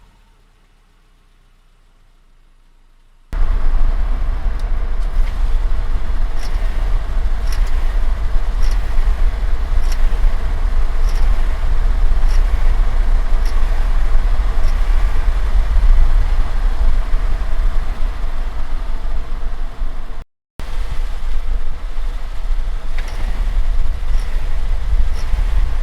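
Subaru driving: a loud, steady, low rumble of engine and road noise starts suddenly about three seconds in after a quiet start. Faint short high ticks repeat roughly once a second over it, and the sound cuts out briefly near the end.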